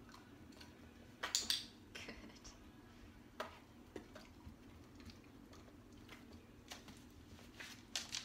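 A dog taking treats from a hand and chewing them: a handful of short, sharp clicks and smacks scattered through, the loudest a pair about a second and a half in, over a faint steady hum.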